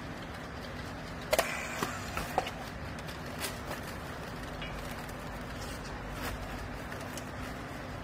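Steady low hum of a hydraulic baler running. Over it, a few sharp clicks and snaps come between about one and a half and two and a half seconds in, as a handheld battery strapping tool and plastic strapping are worked around the compressed bale.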